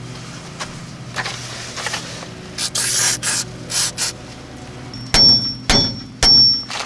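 A few short scraping, rasping sounds, then three ringing hammer blows on metal about half a second apart, striking a rear wheel hub that is seized onto its steering knuckle.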